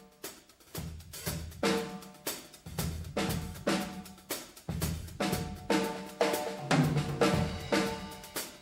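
Drums being played in a steady rhythm, about two strong hits a second, each with a ringing drum tone.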